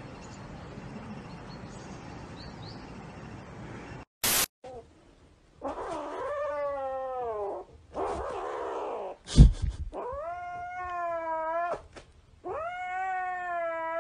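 A grey kitten yowling in four long drawn-out cries of about two seconds each, guarding a plush toy that a hand tugs at; a sharp knock comes between the second and third cry. Steady background hiss comes first, before a cut.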